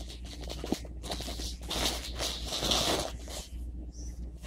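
Clear plastic bag crinkling in the hands as a hard minnow lure with treble hooks is handled inside it, in a few short rustles.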